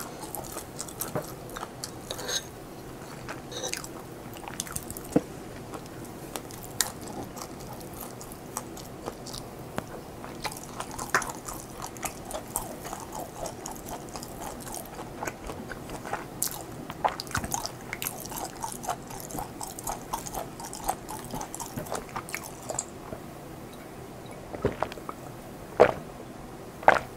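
Close-miked chewing and biting of food, with many small scattered clicks throughout and a few louder sharp clicks near the end.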